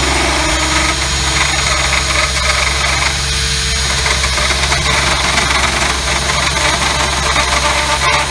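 Dremel-type rotary tool running at high speed with a steady high whine and a grinding rasp as its bit cuts away the plastic of a truck's dash opening to fit a double-DIN stereo. The whine's pitch drops about halfway through.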